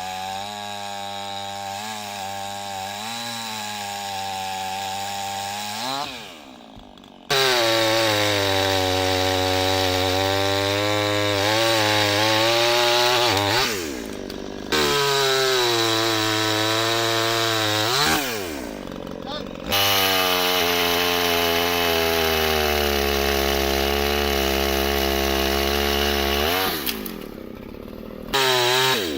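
Petrol chainsaw engine running at high revs, its pitch wavering and sagging at times as if under load, with the sound cutting off and starting again abruptly several times.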